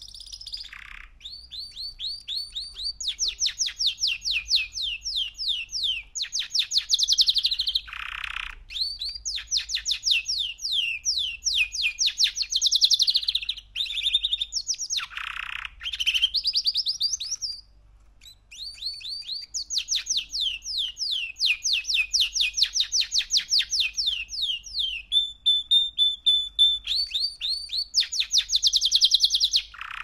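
Three-month-old male canary singing: long trills of rapidly repeated falling notes, about seven a second, broken by a few short pauses, with one steady held note late on.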